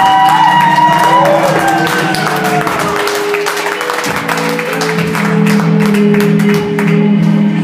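Audience clapping and cheering over the performance music, with whoops in the first second or so.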